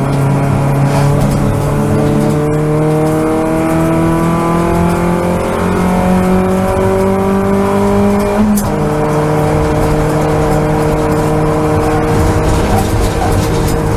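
Toyota Vios race car's four-cylinder engine heard from inside the cabin under hard acceleration. Its pitch climbs steadily for about eight and a half seconds, then falls suddenly with a short click at a gear change, and holds steady after that.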